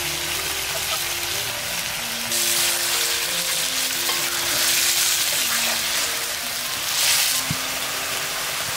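Chicken frying in hot oil in a pan, sizzling steadily while it is stirred, the sizzle swelling louder a few times.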